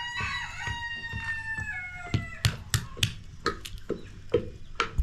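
A rooster crows once: one long call about two seconds long that slides down in pitch. Repeated sharp knocks run under it and on after it, a few a second, from a wooden pestle pounding in a wooden mortar and a hatchet cracking walnuts on a cutting board.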